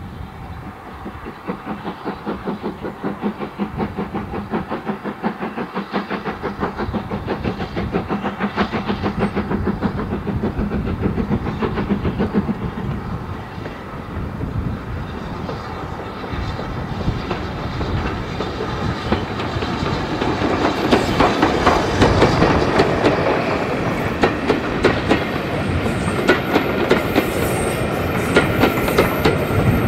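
SR U Class 2-6-0 steam locomotive No. 31806 working a train, its exhaust beating in a steady rhythm and growing louder as it approaches. From about twenty seconds in, the coaches roll past with their wheels clicking over the rail joints.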